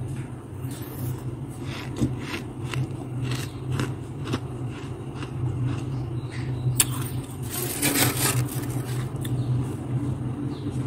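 Freezer frost crunching as it is chewed and scraped up with a metal spoon: a run of short, crisp crunches, thickest about eight seconds in, over a steady low hum.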